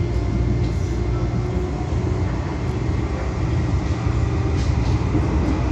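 Metro Cammell electric multiple unit (MLR) train running between stations, heard on board: a steady low rumble of wheels and running gear with a faint steady high whine.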